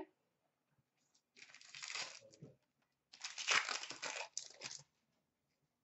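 A 2016-17 Upper Deck SP Authentic hockey card pack's foil wrapper being torn open and crinkled by hand. It comes in two spells, a shorter one about a second and a half in and a longer, louder one from about three seconds.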